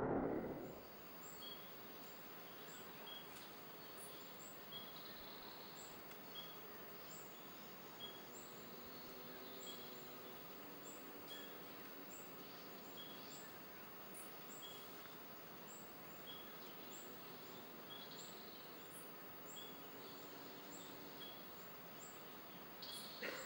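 Faint outdoor forest ambience with a short, high chirp repeated regularly, roughly once a second.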